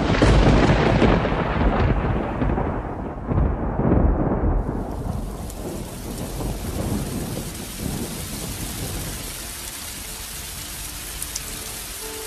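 Thunder breaks in suddenly and rolls in several swells, fading over about four seconds, over heavy rain. The rain then carries on as a steady hiss.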